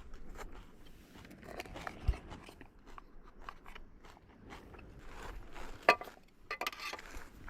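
A person chewing and biting food close to the microphone, with irregular small crunching and clicking mouth sounds. A low thump comes about two seconds in and a sharp click near six seconds in, the loudest sound.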